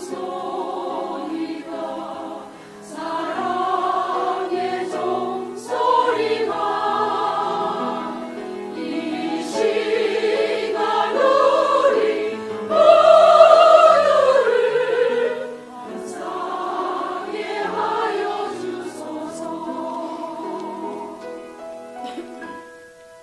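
Church choir singing a hymn, building to its loudest on a long held high note about halfway through, then singing more softly and dying away near the end.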